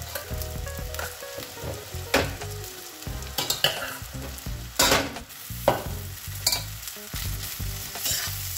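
A metal spatula stirring rice and vegetables in a hot metal wok, knocking and scraping against the pan several times over a steady sizzle of frying.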